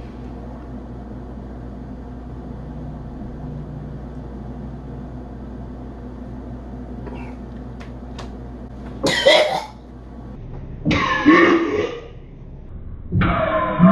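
A man gags and coughs hard three times, each heave under a second, two seconds apart, over a steady low hum. He is close to throwing up a just-swallowed shot of mayonnaise and Jägermeister.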